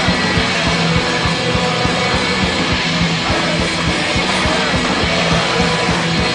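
Background rock music with guitar and drums, a steady driving beat.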